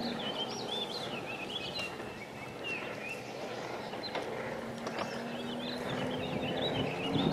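Small birds chirping and warbling close by over the distant steady hum of a small outboard-powered racing boat's engine. The engine hum fades in the middle and grows louder again near the end.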